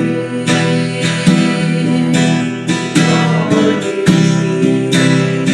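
Instrumental accompaniment to a gospel worship song between sung lines, led by strummed acoustic guitar with steady chords and regular strokes.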